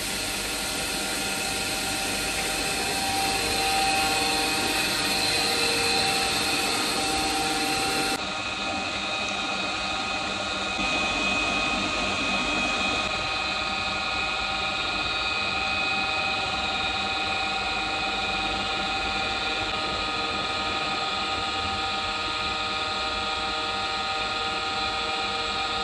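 Dairy milking plant running its wash cycle: water gushing through the milking clusters over a steady machinery hum with several steady tones. About eight seconds in the sound changes abruptly, the high hiss dropping away and the machinery hum carrying on.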